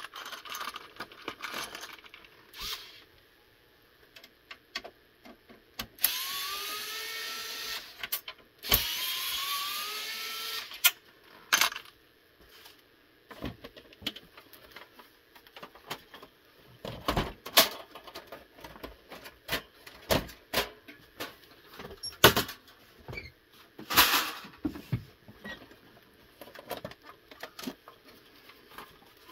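A cordless electric screwdriver runs twice, about two seconds each, its motor whine rising in pitch as it drives screws in the Xbox 360 console's metal chassis. After that come scattered clicks and sharper knocks of the metal chassis and parts being handled.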